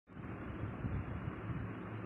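Steady background noise with a low rumble and uneven low thumps underneath.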